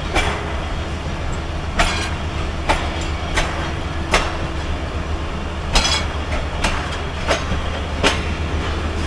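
Moving passenger train: wheels clicking sharply and unevenly over rail joints above a steady low rumble.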